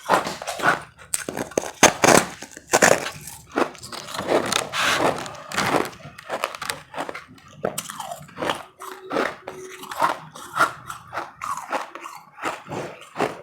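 Close-miked biting and chewing of powdery ice, a quick run of crisp crunches, densest in the first half and sparser towards the end.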